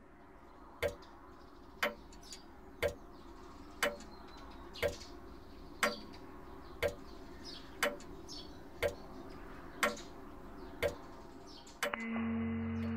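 A clock ticking steadily, one tick a second, with faint bird chirps behind it. A low steady hum comes in near the end.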